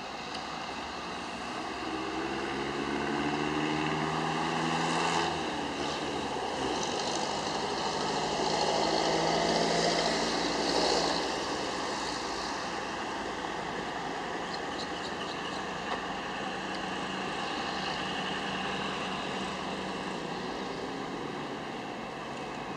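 Diesel locomotive drawing an express train slowly toward the station: a steady engine drone that drops in pitch about five seconds in as it throttles back, with a broad rumble and hiss that swell a few seconds later and then settle.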